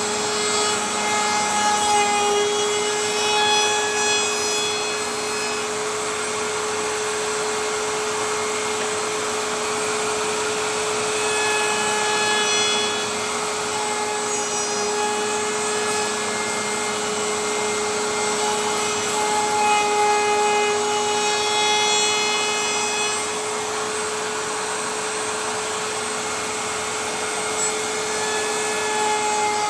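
Electric router running at a steady high whine while cutting redwood, growing louder in several passes as the bit bites into the wood.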